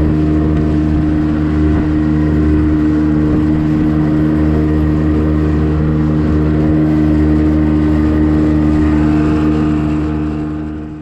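An engine running steadily at an even speed, with a strong unchanging hum.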